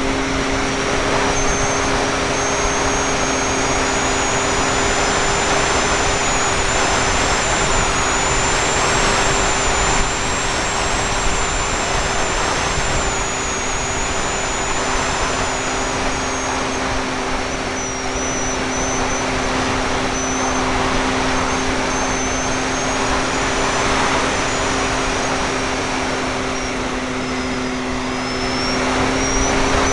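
Parkzone F4F Wildcat RC plane's electric motor and propeller running steadily in flight, heard from a camera mounted on the airframe, with a heavy rush of wind over the microphone. A faint high whine wavers up and down in pitch throughout.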